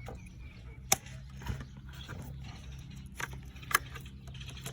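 Plastic clicks and knocks of ignition coils and their connectors being unclipped and worked loose from a BMW 328i's engine, with two sharp clicks about a second in and near the end, over a steady low hum.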